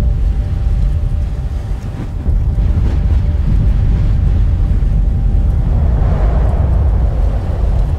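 Deep, steady, wind-like rumble with a faint held tone above it, part of a designed sound bed for fast flight. A brighter rushing swell rises about six seconds in and fades near the end.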